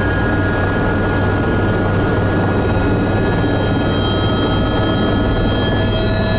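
Eurocopter EC130 helicopter running, heard inside the cabin: its Turbomeca Arriel 2B1 turboshaft and rotor make a steady low thrum under several high turbine whines. A further mid-pitched whine grows stronger near the end.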